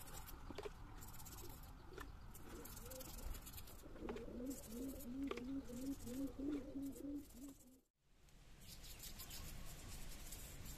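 A dove cooing, a run of short rising coos about two or three a second from about four seconds in, until everything cuts out abruptly near eight seconds. A few faint clicks come before it.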